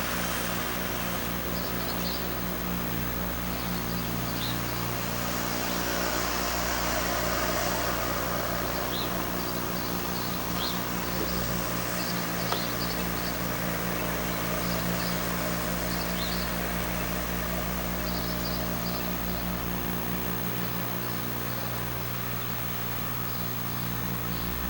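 Steady electrical buzz from the Sony Hi8 Handycam's own recording, a stack of low hum tones, over an even hiss of outdoor background noise. Short high chirps come and go throughout.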